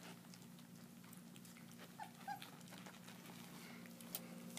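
German shepherd puppies eating their first food, with faint scattered clicks of chewing and lapping and two short high whimpers about two seconds in.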